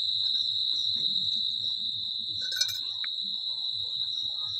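Crickets trilling in a steady, continuous high-pitched drone. A short clatter sounds about halfway through.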